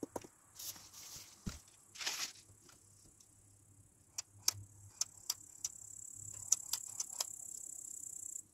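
Scattered sharp clicks and knocks of the black plastic parts of an electronic ice-fishing rod being handled and fitted together, with a brief rustle about two seconds in. Under them, a steady high-pitched chirring of insects grows louder in the second half and cuts off suddenly at the end.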